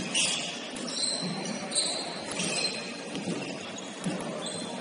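Basketball game play on a gym court: a ball bouncing with dull thuds and several short, high sneaker squeaks, over the murmur of a large hall.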